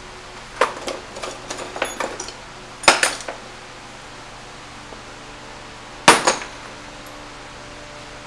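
Hand tools and small hard parts clinking and knocking as they are handled on a workbench. A run of light clicks comes in the first two seconds, then two louder knocks, about three and six seconds in.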